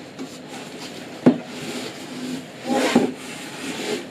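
Plastic-wrapped monitor parts being handled inside a cardboard box: packaging rustling, with a sharp knock about a second in and another about three seconds in, the second amid a burst of rustling.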